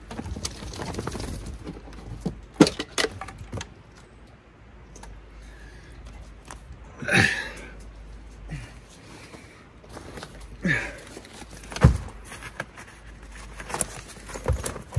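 Gear being handled in a truck bed: scattered clunks, knocks and rattles, with two short sounds that fall in pitch, about seven and eleven seconds in.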